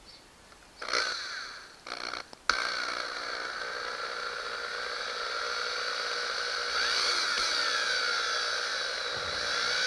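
Electric drill with a small twist bit boring a pilot hole into a fiberglass boat transom: two short trigger bursts about a second apart, then the drill runs steadily from about two and a half seconds in, its whine wavering a little in pitch.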